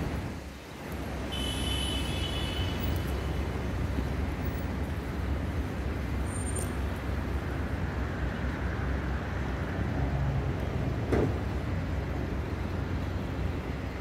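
City street traffic going by, with wind on the microphone as a steady low rumble. A brief high-pitched squeal comes about a second and a half in, and a single sharp knock comes near the end.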